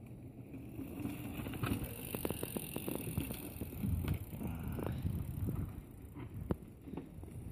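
Mountain bike rolling over bare rock and grit as it passes, tyres rumbling, with a run of quick clicks and knocks from the bike. It builds after about a second and fades near the end.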